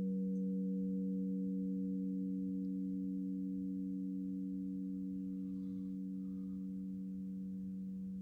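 Crystal singing bowls ringing on after being played: a steady, pure hum of a few low tones that slowly fades.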